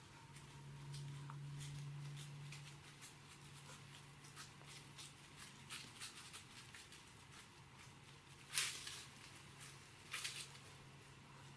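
Whitetail deer walking through dry fallen leaves: faint, irregular crunching rustles, with two louder rustles near the end, over a faint steady low hum.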